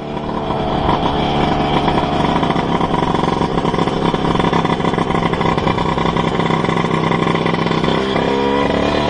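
Racing-tuned two-stroke Vespa smallframe scooter engine revving and held at high revs with a crisp, dry exhaust note, dropping briefly and climbing again near the end.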